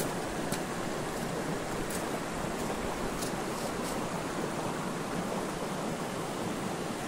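Shallow rocky stream running steadily over small rapids, with a few faint high ticks in the first few seconds.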